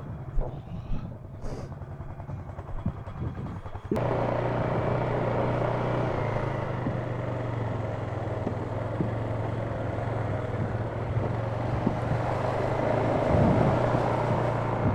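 ATV engine running, quiet with a few knocks at first, then abruptly louder about four seconds in and running steadily under way, with a steady hum and trail noise.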